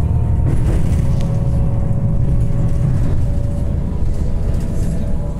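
Passenger train running over a steel truss bridge, heard from inside the carriage: a loud, steady low rumble of the wheels and running gear, with faint steady tones above it.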